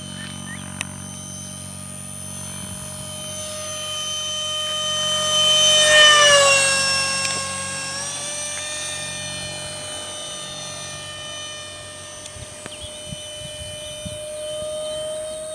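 Electric ducted fan of a model F-15 jet (64 mm five-blade fan on a 4500 kV outrunner motor) whining in flight. It grows louder to a low fly-by about six seconds in, its pitch dropping as it passes, then fades and climbs in pitch again near the end.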